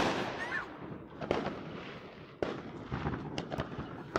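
New Year's Eve firecrackers and fireworks going off all around: sharp bangs about a second in and again halfway through, a few smaller cracks near the end, over a steady crackle and rumble of more distant explosions.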